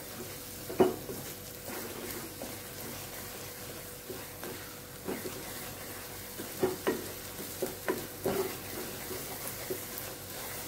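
Spatula stirring and scraping scrambled egg masala in a non-stick kadai over the frying sizzle, with a few sharper scrapes and knocks against the pan, most of them between about five and nine seconds in.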